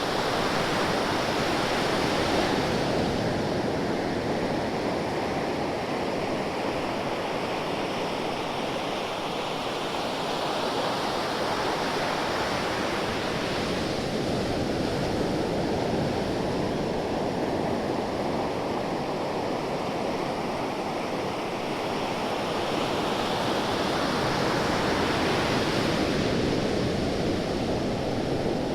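Ocean surf: a continuous wash of waves, swelling and easing, with a wave breaking and hissing up near the start, again about halfway through and again near the end.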